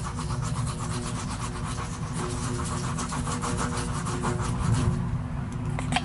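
Hand scraper rasping in quick repeated strokes over the buffed rubber of a truck tire's inner liner, cleaning off buffing solution and buffing dust before the patch glue goes on. The strokes stop about five seconds in, over a steady low hum.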